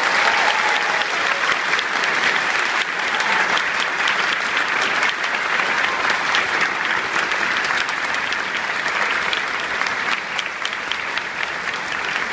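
Audience applause: many hands clapping steadily, fading slightly toward the end.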